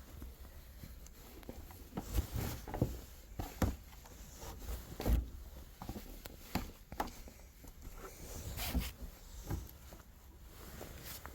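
Wet laundry being handled and loaded into a tumble dryer drum: irregular soft thumps and rustles of damp clothes, with occasional light knocks.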